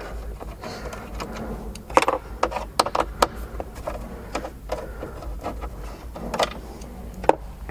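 Hand screwdriver working the two screws that hold a car's central touchscreen display, making a run of irregular sharp clicks and taps, bunched together about two to three seconds in and again near the end.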